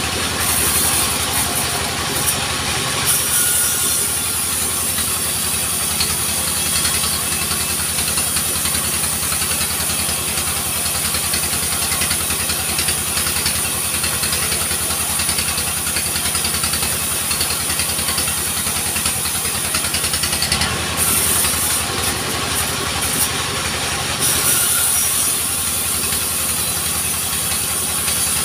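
A log sawmill machine's engine running steadily, with a steady high hiss over it that breaks off for a few seconds twice, near the start and about three-quarters through.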